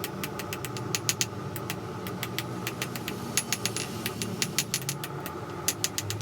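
Rapid hammer blows on hot steel, about five sharp strikes a second, thinning a blade's edges, over a steady low machine hum.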